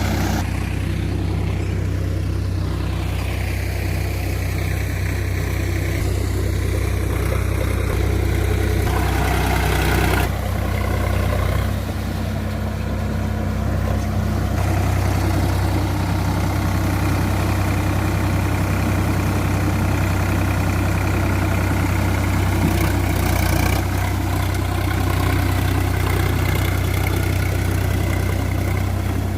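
Sonalika DI-47 RX tractor's diesel engine running steadily at an even speed, a constant low drone.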